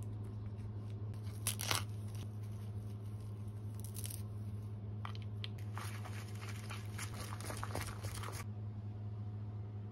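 Natto being torn up with shiso and stirred with wooden chopsticks in its plastic tray: crinkling, crunching handling sounds in short bursts, the longest running from about six to eight and a half seconds. A steady low hum sits underneath.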